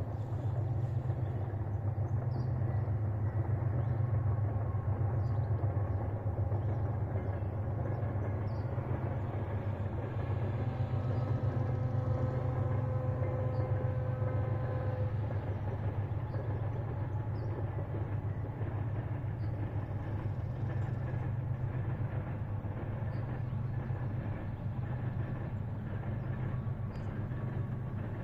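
Distant diesel freight locomotives working as the train approaches, a steady low rumble. These are 3TE10M units with 10D100 two-stroke diesel engines.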